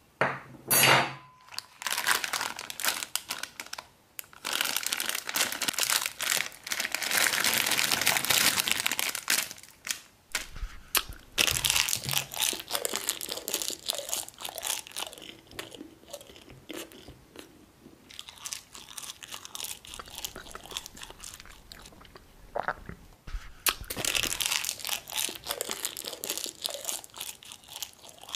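Clear plastic wrapper of a crouton packet being torn open and handled, crinkling and crackling in three long stretches.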